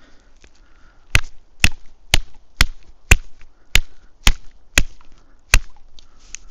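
Sharp knocks of a knife's screwdriver tip being jabbed into a coconut shell's eye, nine strikes about two a second, punching a hole to drain the coconut water.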